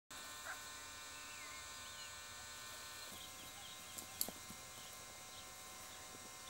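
Faint background hiss with a few distant bird chirps, and a couple of soft clicks about four seconds in.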